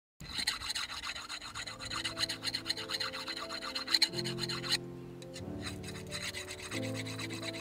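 Rapid back-and-forth strokes of metal scraping on metal as the edge of a tlachiquero's raspador (maguey scraper) is sharpened, with sustained low music notes underneath. The scraping is loudest in the first half and grows fainter after about the middle.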